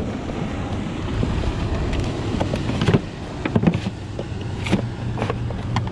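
Plastic cooler being rummaged in: several short knocks and clunks as bottles and ice packs are shifted around inside it, over a steady background rush.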